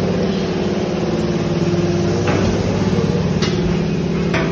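Heavy workshop machinery running with a steady low hum. Two sharp hammer strikes on metal come near the end.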